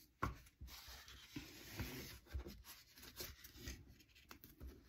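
Faint rubbing and light scratching of craft-foam strips being handled and glued, with a few soft ticks and taps.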